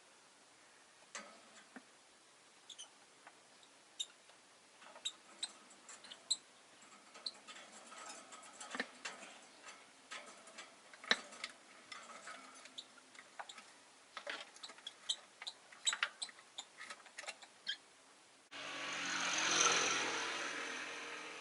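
Rosy-faced lovebirds making many short chirps and clicks in their cage. Near the end a rushing noise starts suddenly, swells and slowly fades over about three seconds.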